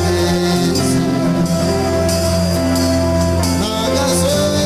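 Slow gospel worship music: sustained instrumental chords over a steady bass, with a voice singing long held notes that slide between pitches.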